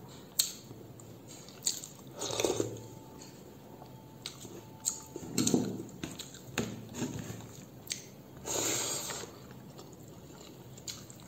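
Close-miked eating of a Nepali rice meal: chewing with wet, squishy mouth sounds and several sharp clicks and smacks, coming in short bursts a few seconds apart.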